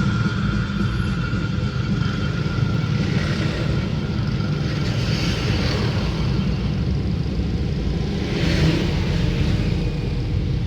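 Buses and other road traffic passing: a steady low engine rumble, with two swells of tyre and engine noise as vehicles go by, the first about three seconds in and the second near the end.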